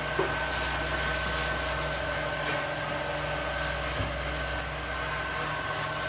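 A steady machine hum with a thin, high, constant whine over it, and a few light clicks.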